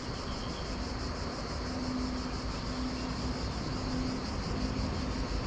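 Steady outdoor ambience on a riverbank: an even hiss of flowing water and air, with a low rumble underneath.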